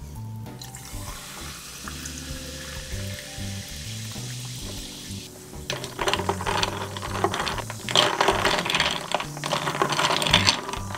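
Sparkling water poured over ice in a glass mug, hissing and fizzing. About halfway through, the ice is stirred with a stirrer and clatters sharply against the glass, louder than the pour. Soft background music plays underneath.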